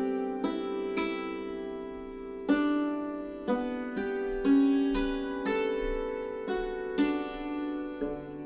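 Instrumental background music: a slow melody of separate struck, keyboard-like notes, each starting sharply and fading, a new note about every half second to a second.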